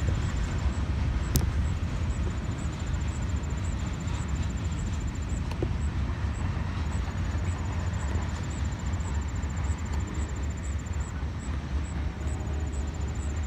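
Freight train's boxcars rolling past at a distance: a steady low rumble, with one brief click about a second and a half in.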